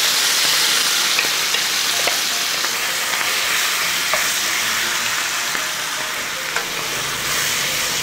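Chili-marinated cuttlefish sizzling steadily in hot oil as it is stir-fried over high heat, turned continuously with a wooden spatula that gives a few light clicks against the pan.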